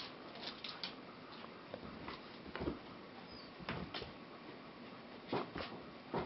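German Shepherd puppy's claws clicking and scrabbling on a brick floor as it pounces after a laser dot: irregular scattered clicks and light knocks, a few close together.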